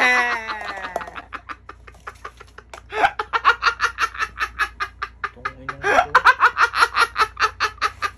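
A man laughing: a loud falling shriek of laughter in the first second, then two bouts of rapid cackling laughter about three and six seconds in.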